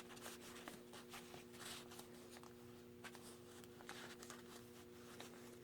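Near silence, with faint paper handling: small rustles and light ticks as a slip of message paper is folded and tucked back into a hidden paper clip in a handmade paper journal. A faint steady hum sits underneath.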